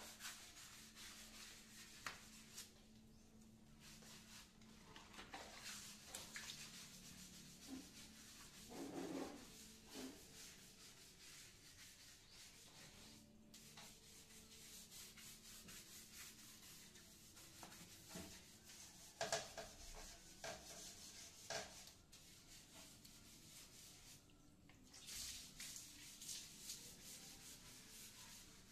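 Faint scrubbing of a ceramic toilet by hand with a wet sponge: uneven rubbing strokes with a few louder scrapes and knocks now and then.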